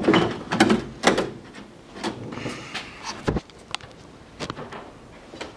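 Car hood being released and raised: clunks and knocks from the hood latch and sheet-metal hood in the first second or so, a single sharp knock about three seconds in, then a few light clicks.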